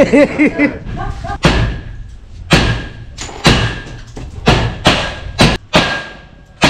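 Repeated heavy hammer blows during door installation work, about one a second with a few coming closer together, each knock ringing briefly.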